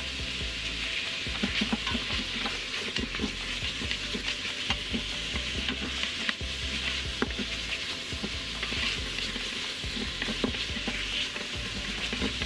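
Pork sizzling as it fries without oil in the stainless-steel inner pot of an Instant Pot on sauté, a steady sizzle with small clicks and scrapes from a wooden spatula stirring the meat against the pot. The meat is browning and sticking to the bare steel bottom.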